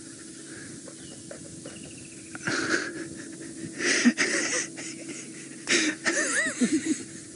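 African elephant right beside the ground-level camera, scuffing its foot through dry grass and dirt and huffing through its trunk, in several bursts about two and a half, four and six seconds in.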